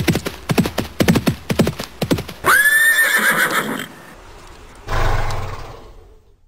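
Horse hooves clip-clopping at about three beats a second, then one loud whinny about two and a half seconds in, followed by a shorter rough sound that fades away near the end.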